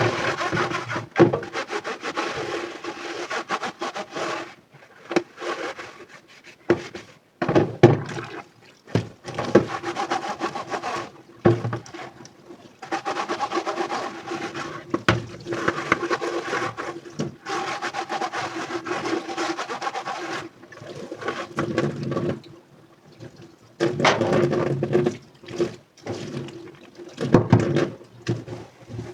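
Dishes being washed by hand in a sink: sponge scrubbing and rinsing under running water in stop-start stretches of a few seconds, with occasional sharp clinks.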